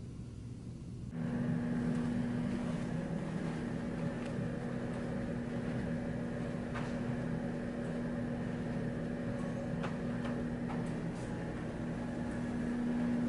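Steady mechanical hum with one constant low tone, starting suddenly about a second in, with a few faint scattered clicks over it.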